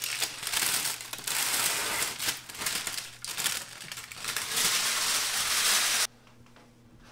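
Parchment paper crinkling and rustling as it is peeled away from a baked loaf of bread and lifted off. The rustling stops suddenly about six seconds in.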